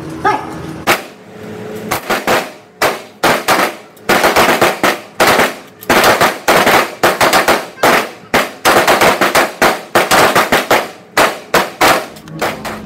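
M4 carbines firing from several shooters on the line: a few single shots from about a second in, then a dense run of overlapping shots for most of the rest.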